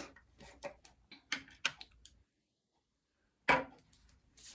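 A run of small sharp clicks and taps from handling a jar of night cream and its lid. The sound cuts out completely for about a second, then there is a single louder knock.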